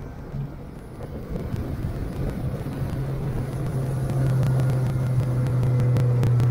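Outboard motor driving a small boat at speed, a steady low drone that grows louder over the first few seconds and then holds, with wind rushing past.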